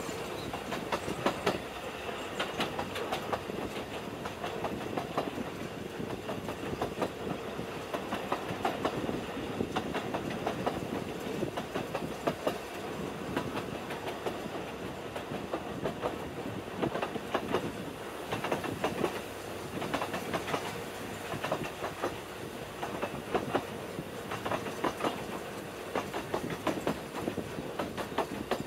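Narrow-gauge train running along the line: a steady rolling rumble with the wheels clattering over rail joints in irregular clusters of clicks.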